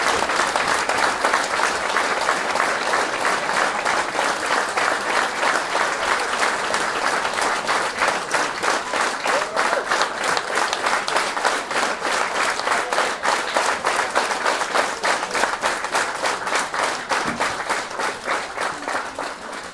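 Concert audience applauding; about halfway through, the clapping falls into a steady beat, many hands clapping in time together.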